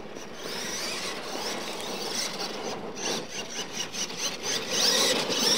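RC monster truck driving on loose dirt: its motor whine rises and falls with the throttle over the rasp of the tyres scrabbling in the dirt, loudest near the end.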